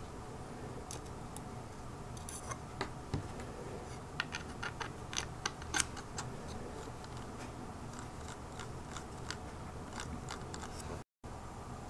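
Small sharp clicks and taps of 3D-printed plastic gears and plate being handled and fitted onto metal pin axles, a quick run of clicks in the middle and fainter ticks later.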